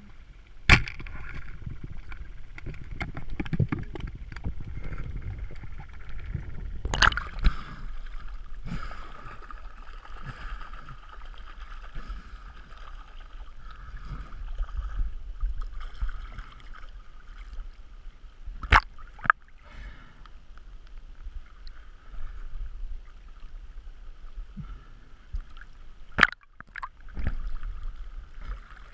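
Water sloshing and gurgling around a camera as it moves underwater and then bobs at the surface, with a few sharp knocks scattered through it.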